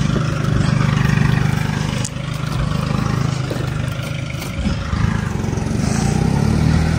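Compact tractor's engine running steadily, with a brief dip in level about two seconds in.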